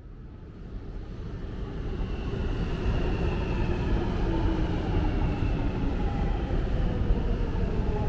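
A London Underground Jubilee line train on the platform, with a low rumble and a motor whine that slowly falls in pitch as the train slows. The sound fades in over the first couple of seconds.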